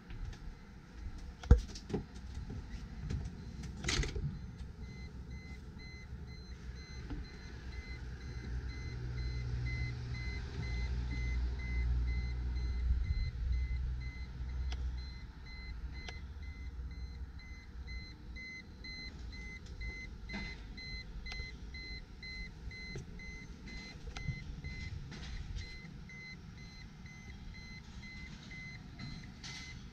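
A vehicle engine rumbling, swelling for several seconds and then easing to a steady low drone, with a repeating electronic beep running through most of it. A sharp knock about a second and a half in is the loudest sound, and another comes about four seconds in.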